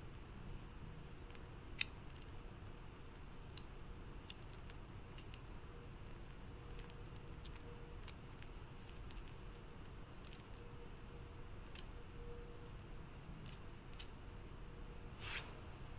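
Faint clicks of small hard-plastic toy parts being handled and fitted together, a toy car body pressed onto its wheeled chassis. Scattered light clicks, a sharper one about two seconds in, and a short rustle near the end.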